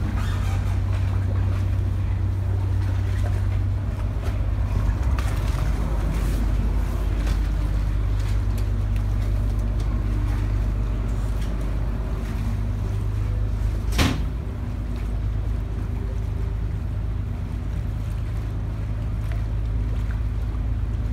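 Waterbus engine running with a steady low drone as the boat pulls away from the landing stage and moves out onto the canal. One sharp knock about two-thirds of the way through.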